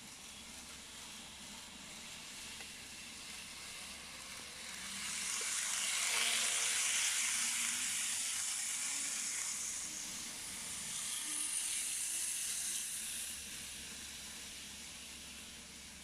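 Tomix N-scale model of a KiHa 181 series train running on its track: a hissing whir of motor and wheels that grows louder about five seconds in, stays loudest for several seconds as the train passes close, then fades after about thirteen seconds.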